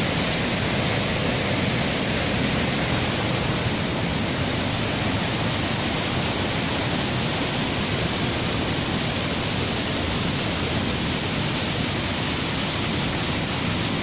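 Waterfall cascading over rocks: a steady, even rush of water.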